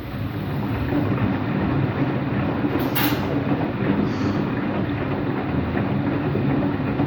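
Empty washing machine on its spin cycle, the drum running with a loud, steady rumble from worn bearings. It builds over the first second. The owner thinks both the drum and motor bearings may be bad. A brief hiss comes about three seconds in.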